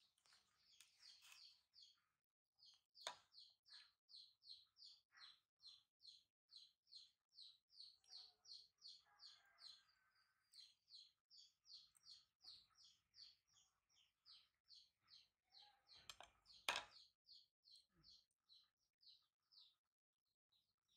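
A bird calling faintly in the background: a long, even series of short high chirps, about two to three a second, stopping near the end. A sharp click comes about three seconds in, and a louder knock about seventeen seconds in.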